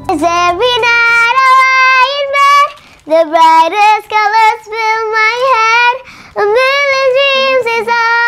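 A young girl singing without accompaniment, in three phrases of long held notes with short breaks about three and six seconds in.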